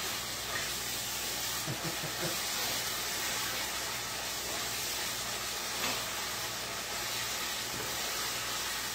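Steady hiss of ground taco meat simmering and sizzling in a steaming pan as its liquid cooks off, over a steady low hum.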